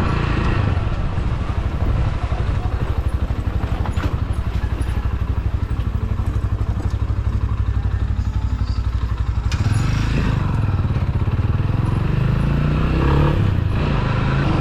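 Rusi Classic motorcycle engine running steadily while being ridden, its note rising in pitch near the end.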